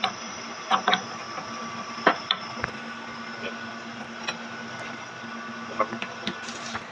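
Short metallic clinks and knocks as the parts of a Sauer-Danfoss hydraulic drive motor are handled during disassembly: its splined shaft and housing plate moved against the casing and the workbench. About eight of them, the loudest near one and two seconds in, over a steady machine hum.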